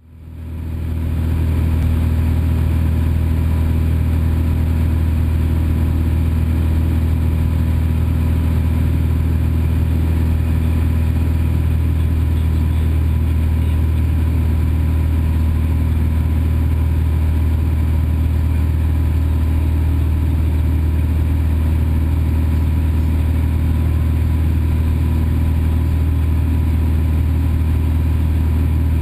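Cessna 172's piston engine and propeller droning steadily in flight, heard from inside the cabin. The sound fades in over the first second or so, then holds at an even, unchanging pitch.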